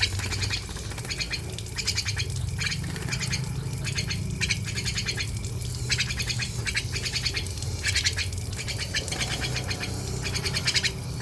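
A jalak, a starling-family bird, giving repeated short, harsh squawking calls in quick clusters, over a steady low background hum.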